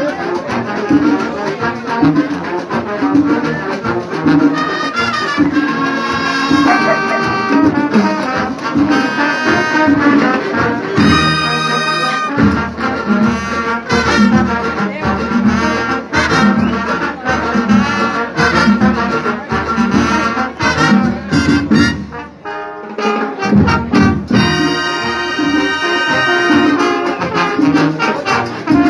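A marching band's brass section, trumpets and trombones, plays a Latin-style tune over a steady drum beat. There is a brief break in the music about two-thirds of the way through.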